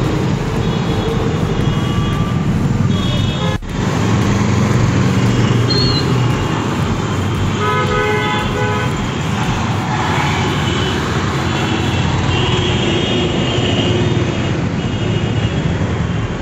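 Busy road traffic: motorcycles and other vehicles running past, with several short honks of horns.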